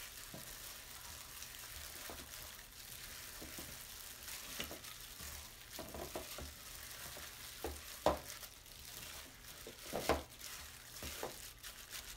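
Gloved hands squishing and kneading raw sausage meat with chopped vegetables in a mixing bowl: a soft, wet squelching with a few short, soft knocks.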